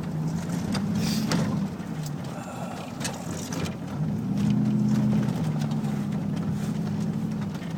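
Chevy Tahoe driving on the road, heard inside the cabin: a steady low engine and road drone whose pitch shifts up and down a little, with a few light knocks.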